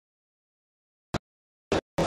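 Dead digital silence for about the first second. Then a sharp click and, about half a second later, a short burst of noise as the sound of the assembly chamber cuts back in.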